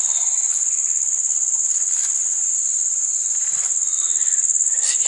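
Loud, steady, high-pitched insect drone that runs unbroken throughout.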